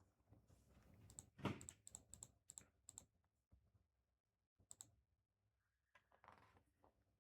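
Faint clicking of a computer keyboard being typed on, a quick run of keystrokes in the first few seconds and a few more near the middle.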